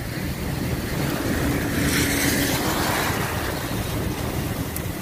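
Car driving through heavy rain: a steady rush of tyres on the wet road and wind against the car, with a low rumble. It swells briefly about two seconds in.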